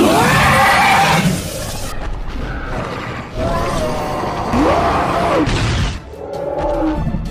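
Cartoon battle sound effects: a sudden loud blast with a crackling hiss lasting about two seconds as lightning strikes. Over and after it come several loud cries whose pitch swoops down and arches up and down.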